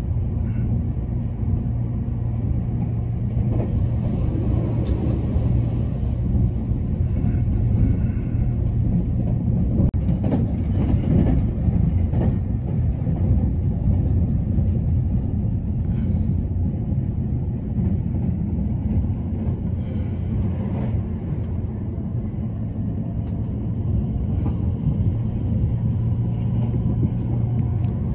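Running noise of a JR East E353 series limited express electric train heard from inside the carriage: a steady low rumble of wheels on rail, with a few faint clicks.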